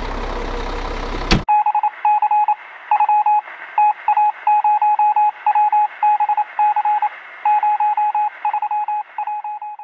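A snow groomer's engine runs steadily and cuts off abruptly about a second and a half in. It is followed by a single beeping tone keyed on and off in short and long pulses like Morse code, thin and narrow as if heard over a radio.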